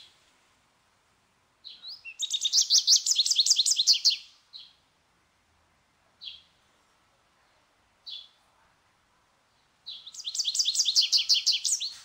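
American goldfinch singing: two rapid twittering trills of high, evenly repeated notes, the first about two seconds in and the second near the end, with three single short call notes spaced between them.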